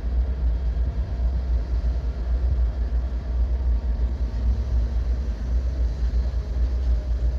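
Diesel locomotive idling nearby: a steady low rumble.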